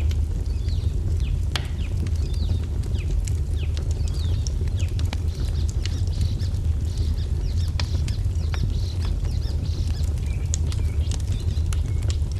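Wood fire crackling in sharp scattered pops over a steady low rumble, with small birds chirping throughout in short, quick, falling notes.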